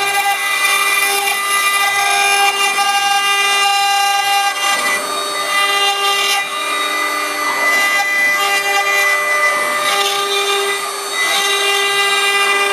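Stone CNC router's spindle carving a white stone figure turning on the rotary axis under coolant water: a steady high-pitched whine over a grinding hiss. The whine breaks up into a rougher grinding twice, about five and ten seconds in.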